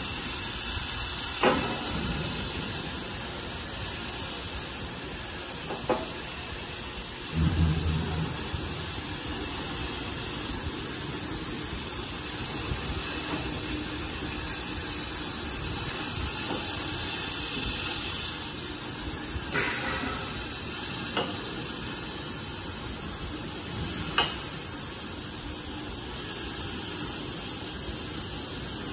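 Oxy-fuel cutting torch on a CNC cutting machine burning through thick steel plate: a steady high hiss of the cutting flame and oxygen jet. A few short clicks sound through it, and a brief low buzz comes about seven seconds in.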